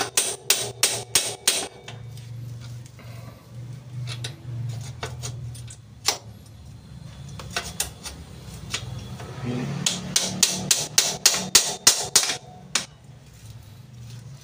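Hammer tapping metal on a motorcycle's rear wheel assembly, knocking it a little to the left into place, in quick even strikes at about four a second. The strikes stop about two seconds in, give way to a few scattered knocks, and start again in a second run near ten seconds in.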